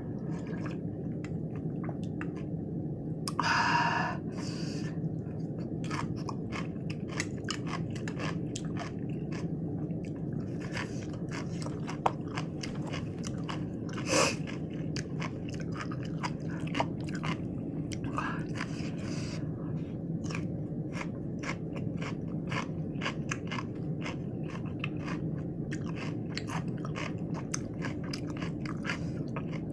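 Close-up chewing of crunchy lettuce wraps with raw vegetables: a steady run of crisp, wet crunches and bites, with a few louder bites along the way.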